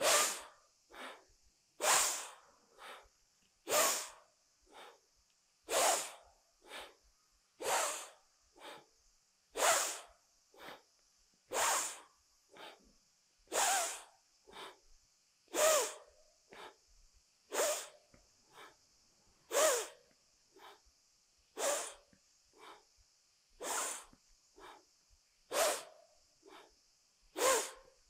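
A woman's forceful, rhythmic breathing, paced to a squat-and-rise exercise: exhaling going down and inhaling coming up. A strong breath about every two seconds alternates with a weaker one, some fourteen cycles in a row.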